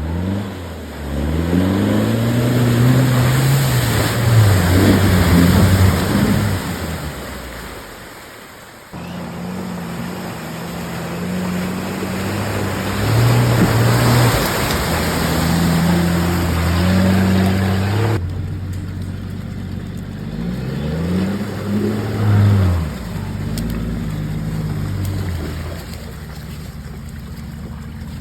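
Off-road 4x4 engine revving up and down under load, its pitch rising and falling repeatedly over a steady rush of tyre and terrain noise. The sound changes abruptly twice, about 9 and 18 seconds in.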